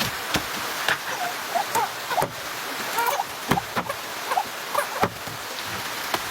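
Steady rain falling, with a run of irregular water splashes and knocks through the middle.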